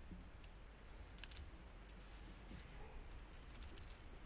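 Faint, scattered small clicks and ticks over a quiet, low background: a fishing lure being handled as weed is picked off its hooks.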